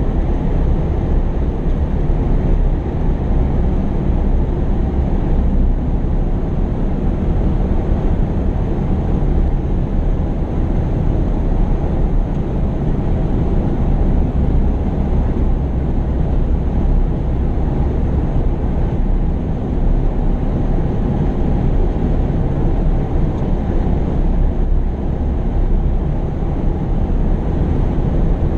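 Diesel engine of heavy earthmoving machinery running steadily: a continuous low rumble that holds level throughout.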